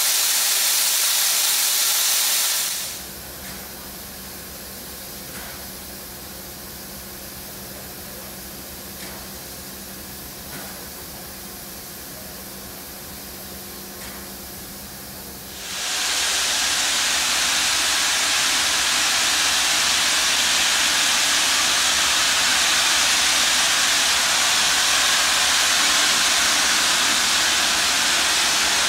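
NSW C38 class steam locomotive 3801 venting steam from its cylinder drain cocks: a loud, steady hiss. About three seconds in the hiss drops away, leaving a quieter stretch with a steady low hum and a few faint knocks. About sixteen seconds in a loud hiss of steam returns and holds.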